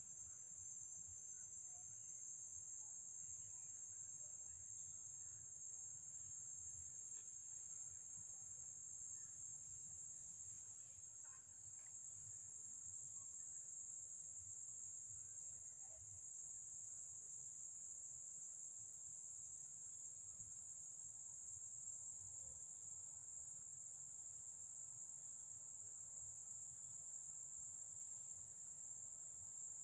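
Forest insects keeping up a steady, high-pitched, unbroken shrill, faint, over a faint low rumble.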